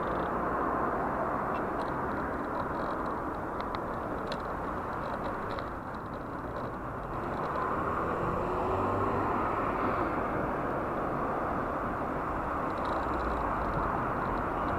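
Steady wind and road noise on the microphone of a camera riding on a moving bicycle, with a slight dip about six seconds in.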